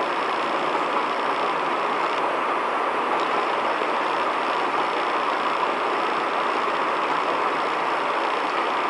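Steady, even background noise with no distinct events, strongest in the middle range.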